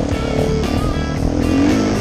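Music with guitar and a steady beat, mixed over a dirt bike engine revving up and down, climbing in pitch near the end.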